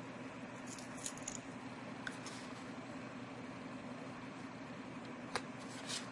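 A few soft clicks and taps of tarot cards being handled and slid over one another, the sharpest about five seconds in, over a steady low background hum.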